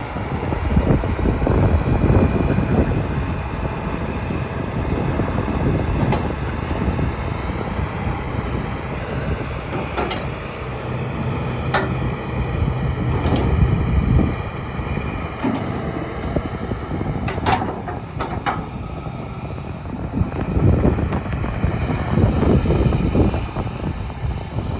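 Hitachi ZX250LC-5N hydraulic track excavator running, its diesel engine rumbling with rattling from the machine. Several sharp metallic clanks, with a quick cluster about two-thirds of the way through.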